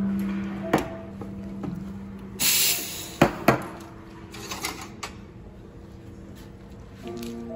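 Espresso machine steam wand steaming milk in a stainless steel pitcher with a steady low hum that stops about two and a half seconds in. A short loud hiss of steam follows as the wand is purged, then two sharp knocks and a few fainter clicks.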